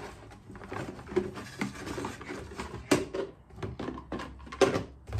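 Nested plastic food storage containers with snap-lock lids clattering and knocking together as they are lifted out of a cardboard box, with cardboard rustling; a series of sharp knocks, the loudest about three seconds in and two close together near the end.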